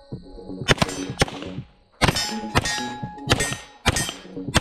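Handgun shots: about seven sharp cracks in quick succession, heard over background music.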